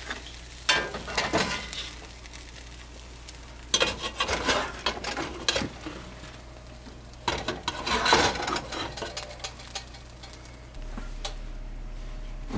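A spatula scraping and knocking around a cast-iron skillet in three bursts of strokes, with fish frying quietly in the pan between them. A steady low hum runs underneath.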